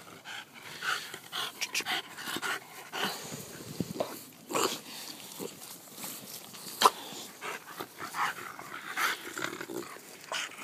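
English bulldogs panting and breathing hard in short, irregular puffs, with a single sharp tap about seven seconds in.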